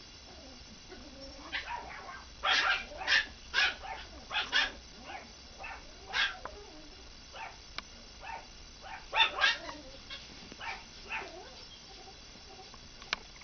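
Four-week-old Yorkshire terrier puppies giving a string of small, high-pitched yips and squeaky barks in bunches, the loudest around two and a half to five seconds in and again near nine seconds.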